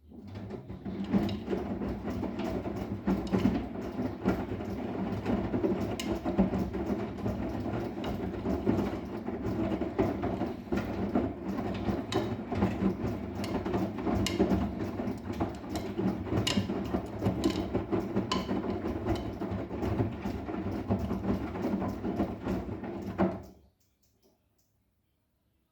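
Arçelik 10121 washing machine running a wash cycle: a steady mechanical rumble of the turning drum with many small clicks and knocks, which cuts off suddenly near the end.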